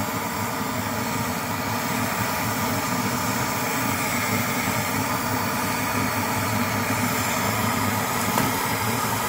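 Steady rushing noise of a 1920s Primus pressure stove's burner, burning evenly without a break.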